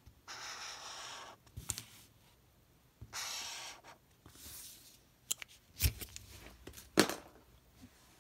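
Chisel-tip highlighter dragged across a paper test card in three scratchy strokes, the third fainter, followed by a few sharp clicks and knocks, the loudest about seven seconds in.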